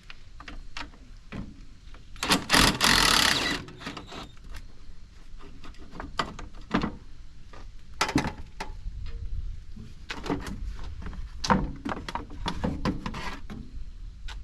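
Socket wrench and hand tools clicking and knocking against metal as bolts are worked loose, with wind rumbling on the microphone. A loud rush of noise lasts about a second and a half, starting about two seconds in.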